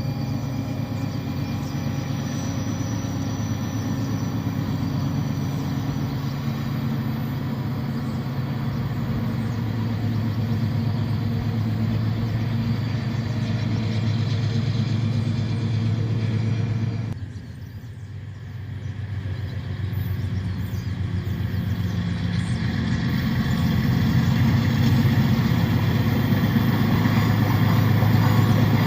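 Diesel-electric freight locomotives working at full throttle up a mountain grade, their engines running with a steady deep hum. The sound drops suddenly about seventeen seconds in, comes back within a couple of seconds, and grows louder near the end.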